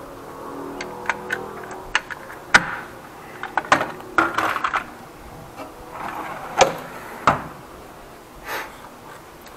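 A run of sharp clicks and knocks as hand tools and a plastic tool case are handled in a steel tool-chest drawer, ending with the drawer being pushed shut.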